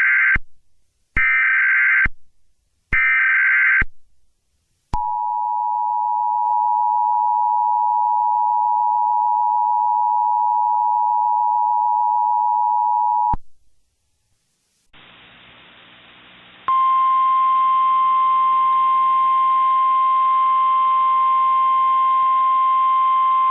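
Emergency Alert System tones: three short bursts of SAME header data, a harsh digital screech about a second apart, then the two-tone EAS attention signal held for about eight seconds before it cuts off. After a short gap and a moment of hiss, a single steady alarm tone of the NOAA Weather Radio kind begins about seventeen seconds in.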